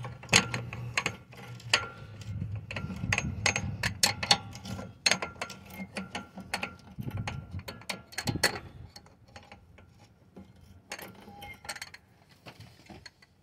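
Adjustable wrench clicking and clinking against a rusty tie rod end nut as it is turned loose and the wrench is reset on the nut again and again. The clicks come thick for the first eight or nine seconds, then thin out.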